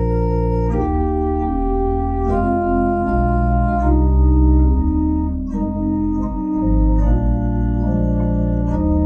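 Organ playing slow, sustained chords that change every second or so over a deep held bass.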